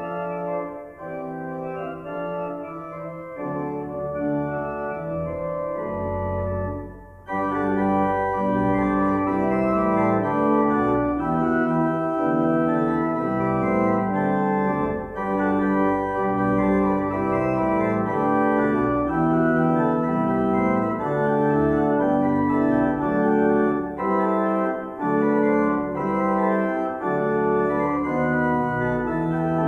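Church pipe organ playing sustained chords. It is softer for the first several seconds, breaks off briefly about seven seconds in, then comes back louder and brighter.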